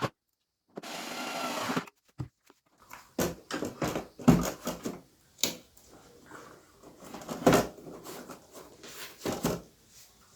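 Electric screwdriver running for about a second near the start, driving a screw, followed by irregular knocks and clicks of plastic parts being handled.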